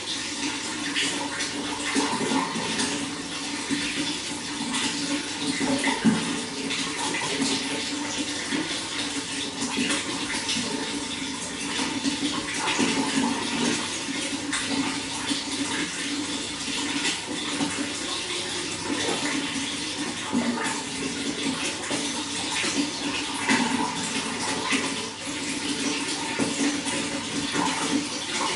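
Running water flowing and splashing steadily, a continuous rush with many small splashes and gurgles.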